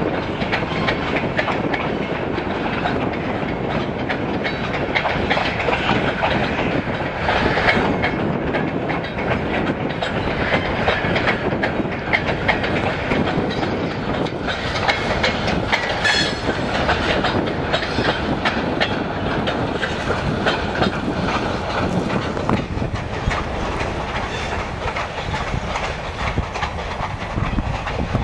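Freight train of covered hopper cars rolling steadily past, its wheels making a continuous clickety-clack over the rail joints.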